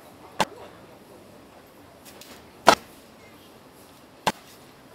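Cleaver chopping crispy roast pork: three sharp strikes, one shortly after the start, one near the middle and one near the end.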